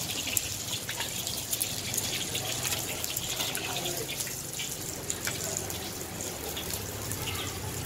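An egg frying in a pool of hot oil in a wok, sizzling steadily, with a metal wok spatula scraping and clicking against the wok as the egg is pushed and lifted.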